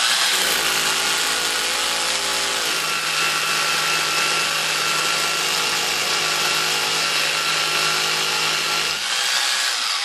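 Mains-powered SDS hammer drill boring a hole into a concrete floor to full depth, running steadily under load. Near the end it is switched off and the motor winds down with a falling whine.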